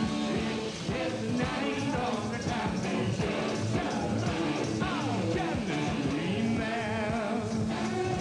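A rock band playing live: electric guitar and drums, with a male singer's voice sliding up and down over them.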